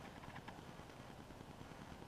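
Wind rumbling low and steady on the microphone of a head- or stand-mounted action camera, about 20 mph gusts, with faint rustling.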